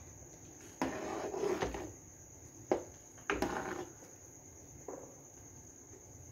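Steel ladle stirring milk in a metal pot, scraping and knocking against the pot in a few short goes: about a second in, again near three and a half seconds, and faintly near five seconds. A steady high-pitched whine runs beneath throughout.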